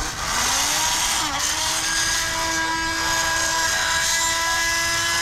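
Small electric motor whining over a hiss. Its pitch climbs over about the first second and a half, then holds steady.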